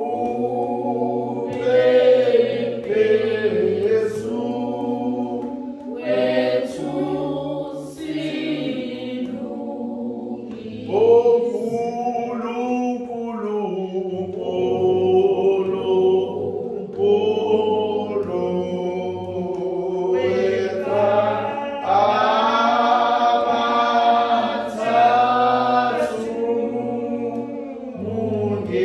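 Church congregation singing a hymn together.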